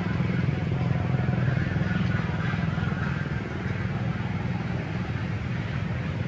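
Steady low hum of an engine running, even throughout.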